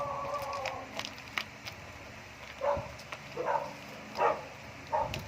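A dog barking four times in short, separate barks, less than a second apart, after a drawn-out whine that fades near the start.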